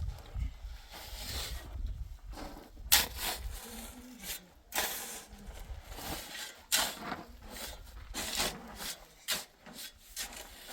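Irregular scraping strokes, each about half a second long, coming every second or so, with a low rumble in the first two seconds.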